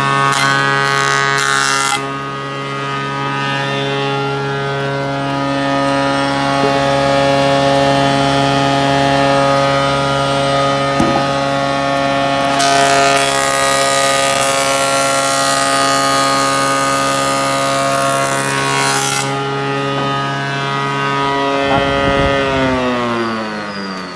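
Nishino combination woodworking machine running with a steady hum while a board is planed: the cutting adds a loud hiss of shaving wood briefly near the start and again for about six seconds in the middle. Near the end the motor winds down, its pitch falling.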